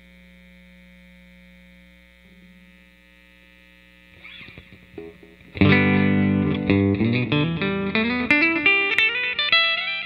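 Electric guitar through a hand-wound P90 pickup on its full-coil setting. A faint held note rings for the first few seconds, then a loud strummed chord comes about five and a half seconds in, followed by single picked notes climbing in pitch.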